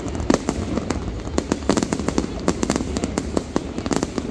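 Aerial fireworks bursting in a rapid, irregular run of sharp bangs and cracks, several a second.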